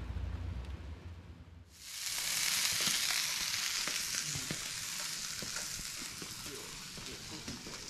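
Flounder frying on a hotplate: a loud sizzle that starts suddenly about two seconds in and slowly eases, with small pops and crackles through it. Before it, a low steady hum.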